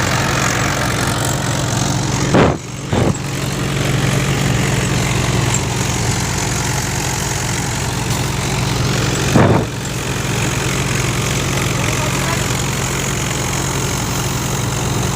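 Multicrop thresher running steadily with a low, even engine hum. Two brief loud knocks come about two and a half and nine and a half seconds in.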